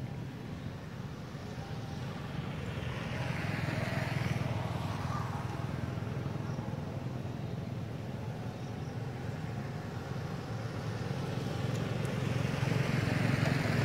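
Two road vehicles pass by, one swelling and fading about four seconds in and another near the end, over a steady low rumble.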